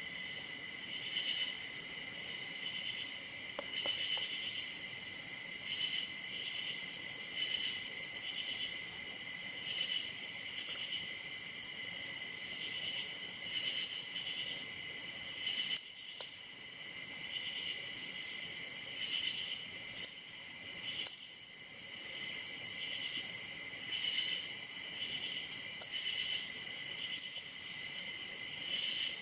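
A steady high chorus of insects such as crickets, trilling and chirping in an even pulsing rhythm, with a few faint clicks from a hook pick and tension wrench working the pin-tumbler padlock.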